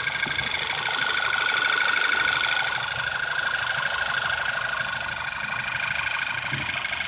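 2008 VW Passat's turbocharged TSI four-cylinder engine idling with a fast, light, even ticking, a new tick that the owner finds is not from the tensioner, water pump or oil pump and suspects is the cam follower.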